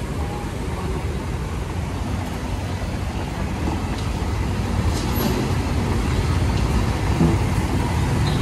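Steady low rumble of heavy diesel machinery: a tracked hydraulic excavator working beside a dump truck. It grows slightly louder about halfway through, with a couple of faint sharp clicks near the middle.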